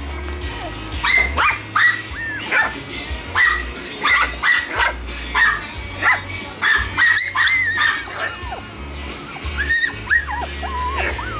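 Bichon Frise puppies yipping and barking in short, high calls, two or three a second and thickest a little past the middle, over background music.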